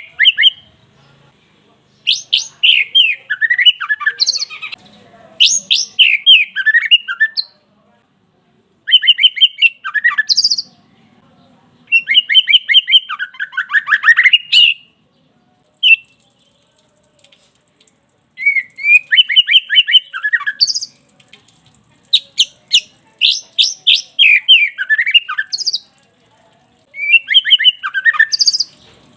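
White-rumped shama (murai batu) singing an agitated full song in repeated bursts of rapid notes, each burst a couple of seconds long, with short pauses between.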